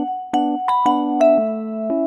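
Background music: a light electric-piano melody, single notes struck a few times a second.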